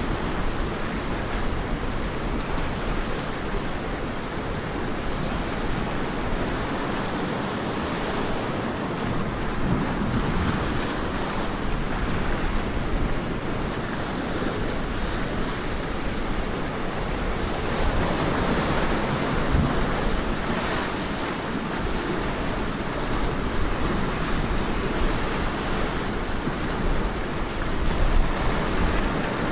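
Ocean surf breaking and washing on a beach, a steady rushing wash that swells gently every few seconds, with some wind on the microphone.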